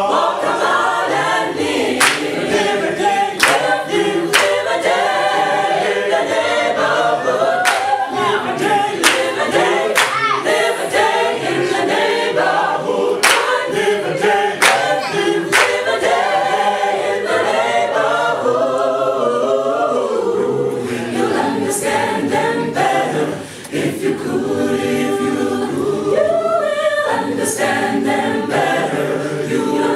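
Mixed a cappella choir singing in several parts, with no instruments. Sharp percussive accents recur about every second or so through much of the passage.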